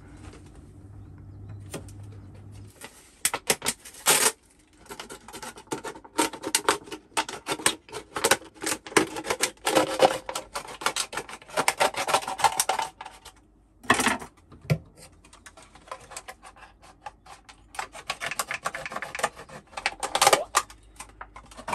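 Thin plastic water bottle crinkling and crackling in rapid irregular clicks as it is cut open by hand with a blade, the plastic tough to cut. It starts about three seconds in and goes on in spells with brief pauses.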